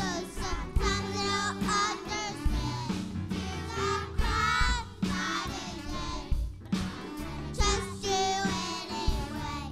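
Children's choir singing a song with instrumental accompaniment and a steady drum beat.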